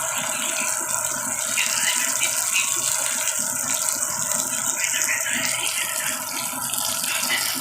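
Fish frying in hot oil: a steady crackling sizzle.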